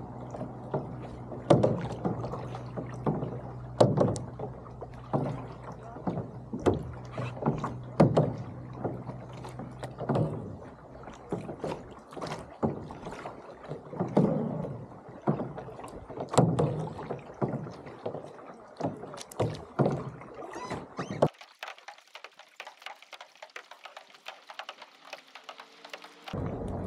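Lake water slapping and splashing irregularly against the hull of a small boat under way, over a low steady hum. The low hum drops out about 21 seconds in.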